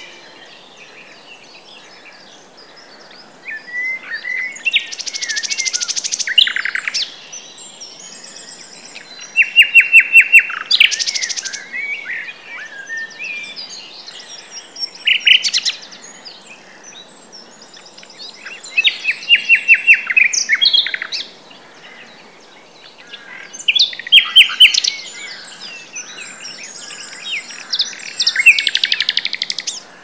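Common nightingale singing: about six loud song phrases separated by pauses of a second or two, each a run of fast repeated notes and clear whistles.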